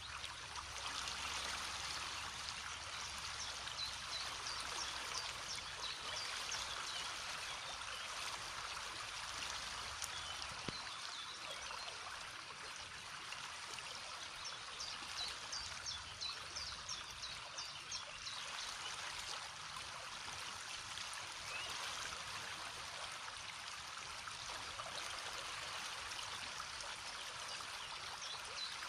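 River water rushing and splashing over stones in a steady, unbroken flow.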